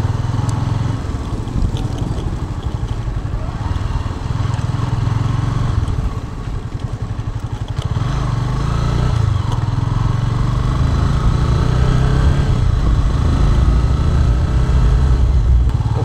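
Motorcycle running along the road, with heavy wind buffeting on the action camera's microphone as a steady low rumble that swells and dips, a little louder in the second half.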